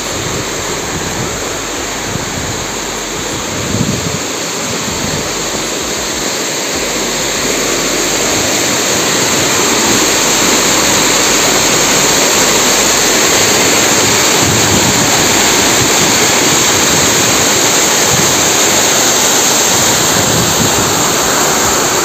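Waterfall rushing: a steady wash of falling water over rock, growing louder about a third of the way through and then holding.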